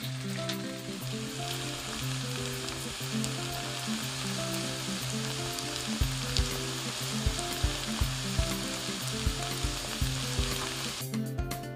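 Shredded zucchini and carrot fritters sizzling steadily as they fry in oil in a pan, under background music. A beat enters about halfway through. The sizzle cuts out near the end.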